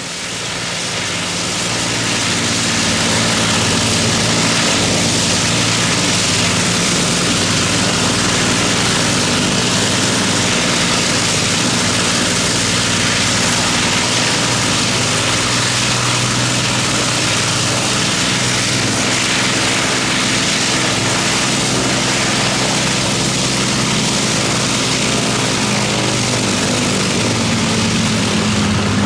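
Avro Lancaster's Rolls-Royce Merlin V12 engines running on a ground run, propellers turning, with a steady deep engine hum under the propeller rush. The sound swells over the first couple of seconds and then holds steady.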